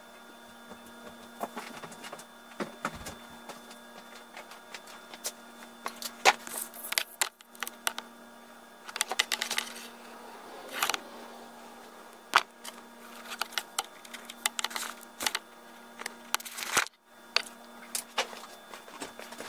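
Scattered clicks, taps and knocks with several short scraping or rustling bursts, over a steady low hum.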